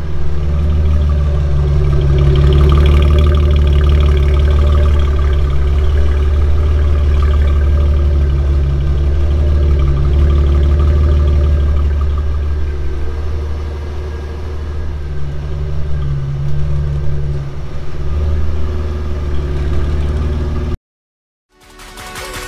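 Supercharged V6 Camaro's exhaust idling loudly and steadily while it warms up after a cold start, the sound bouncing off the garage walls. It cuts off suddenly near the end.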